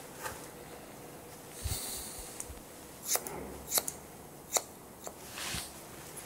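Hair-cutting scissors snipping short grey hair: a handful of sharp snips in the second half, with soft rustling of hair in between.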